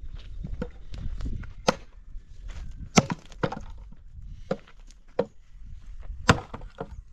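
Firewood being handled and broken: sharp wooden cracks and knocks at irregular intervals, the loudest about three seconds and six seconds in.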